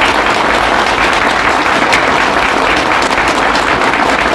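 Audience applauding steadily: a dense patter of many hands clapping, greeting a declaration of candidacy for president.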